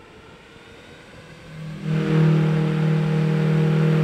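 A 3D-printed 195 mm electric ducted fan spinning up. About a second and a half in it rises quickly into a loud, steady hum with a rushing hiss of air, holding at 30% throttle.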